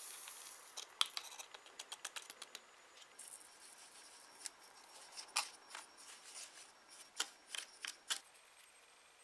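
Powder pouring from a paper sachet into a small plastic tray with a soft hiss that fades out, then stirring in the tray: irregular clicks and scrapes of a utensil against the thin plastic as the powder is mixed into a dough.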